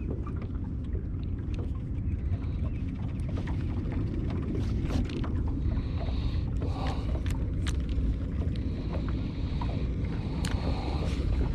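Steady low rumble of a small fishing boat on the water, with scattered light clicks and taps.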